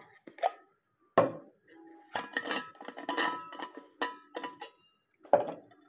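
Stainless-steel vacuum flask being handled and opened on a wooden table: a sharp knock about a second in, then a run of clicks and scrapes with a faint metallic ring as the cap and stopper are worked, and another knock near the end.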